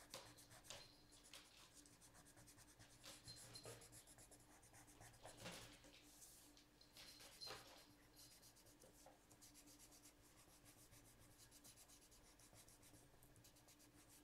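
Faint scratching of a coloured pencil shading on paper in short repeated strokes.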